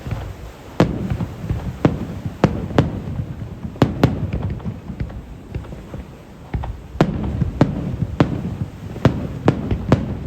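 Fireworks bursting in a rapid, uneven series of sharp bangs, about a dozen, over a low rumble, with a brief lull partway through.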